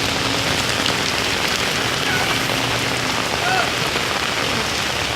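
Steady hiss of heavy rain falling on a surface, even and unbroken.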